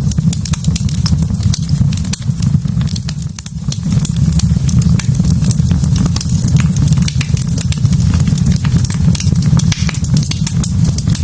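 Wood fire burning in a fireplace, with constant irregular crackling and pops over a steady low rumble of the flames.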